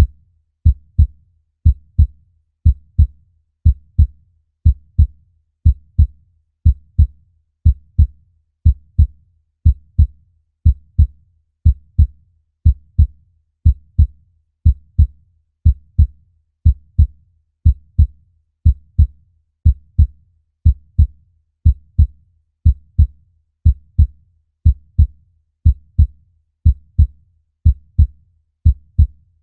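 Human heartbeat: a steady, deep double thump (lub-dub) repeating about once a second.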